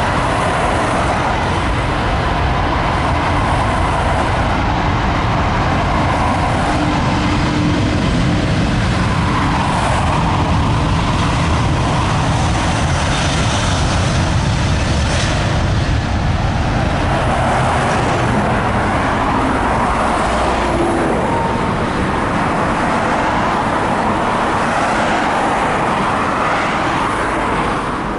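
An Airbus A380-841's four Rolls-Royce Trent 970 turbofans at takeoff thrust during its takeoff roll: a loud, steady jet roar that slowly swells and eases, dropping a little near the end.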